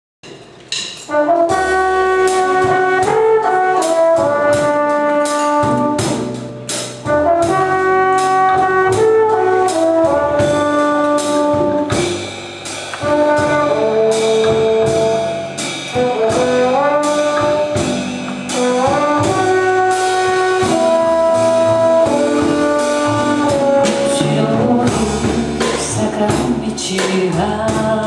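A small jazz band plays an instrumental intro: trumpet and trombone carry the melody together in held notes over upright bass and drums with a steady cymbal beat.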